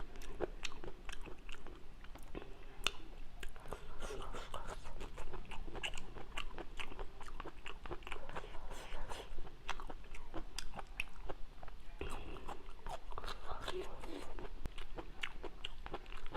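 Close-up chewing and crunching of papaya salad with noodles, a dense run of small, irregular wet clicks and crunches.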